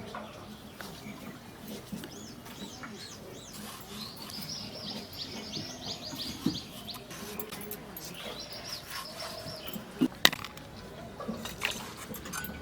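Small birds chirping in quick repeated phrases, with a couple of sharp knocks about ten seconds in.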